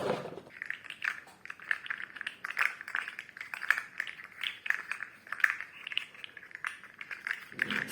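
Articulated plastic fidget slug being wiggled in the hands, its segments giving a soft, irregular clicking and rattling.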